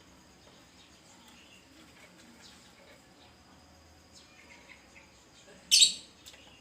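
Lovebirds chirping softly, then one short, loud, shrill call about five and a half seconds in.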